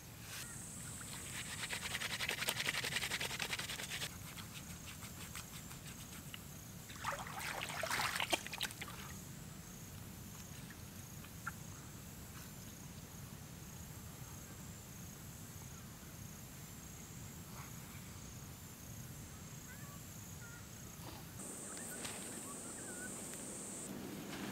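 Wet hands rubbing crushed acacia leaves and water into a soapy lather, a rustling squelch for a few seconds, then a second, shorter spell of wet rubbing and splashing as the face is washed. A faint high insect trill runs underneath and grows stronger near the end.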